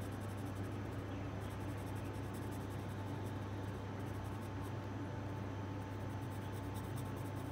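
Graphite drawing pencil scratching on sketchbook paper in rapid short shading strokes, over a steady low hum.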